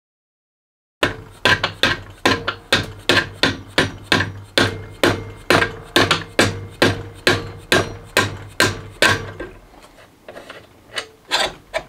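Repeated hammer blows on an AR-15 barrel and front sight base clamped in a steel bench vise, knocking the barrel free of the sight base. A steady run of strikes, about two to three a second, starts about a second in, and a few slower, lighter taps come near the end.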